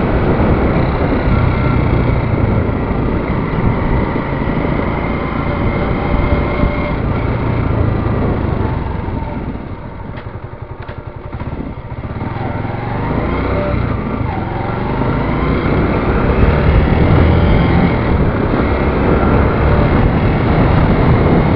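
Motorcycle riding along the road, its engine running under heavy wind and road noise. The sound drops off for a couple of seconds about halfway through as it slows, then builds again with the engine pitch rising as it speeds back up.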